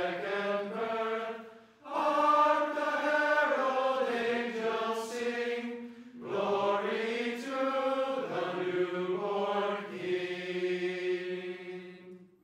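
A choir of men's and women's voices singing unaccompanied in slow, held phrases, with two brief pauses for breath; the last chord dies away near the end.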